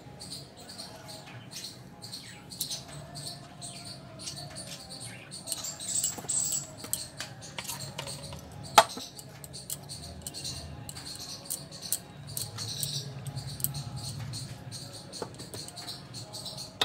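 A spoon spreading and patting thick lentil paste over a taro leaf: soft, irregular scraping and tapping, with one sharp click about halfway through.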